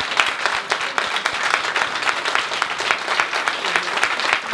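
A small group applauding with dense, irregular hand claps that keep on steadily.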